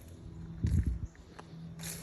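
A few dull low thumps and a sharp knock over a steady low hum.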